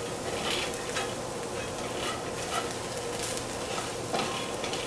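Ramen noodles sizzling as they fry in a skillet, stirred with a utensil that scrapes and taps against the pan now and then.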